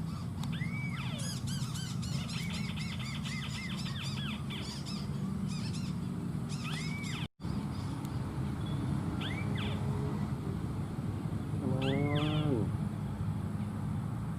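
Wetland birds calling. A short arching whistle repeats every few seconds, a fast run of chirps comes in the first few seconds, and a lower, nasal call with a falling sweep sounds about twelve seconds in, all over a steady low rumble. The sound cuts out for an instant about halfway through.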